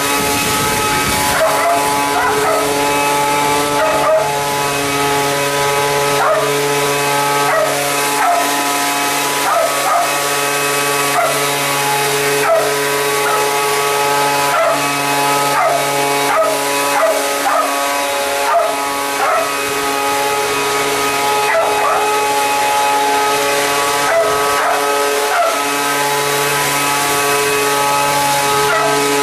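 Handheld leaf blower running at a steady speed while a dog barks and yips at it over and over.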